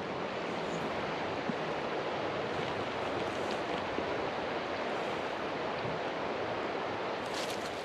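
River water running steadily over a pebble bed and shallows, an even rushing murmur.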